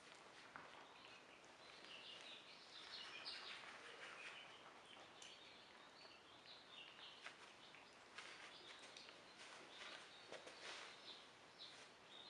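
Faint outdoor ambience with soft bird chirps and scattered small clicks.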